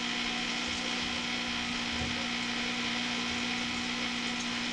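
Steady hiss with a constant low hum and no distinct events: background noise of an old home-video tape recording.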